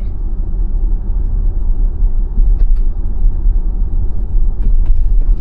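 Steady low road and tyre rumble inside the cabin of a moving 2021 Tesla Model Y, an electric car with no engine note, with a few faint clicks near the middle and end.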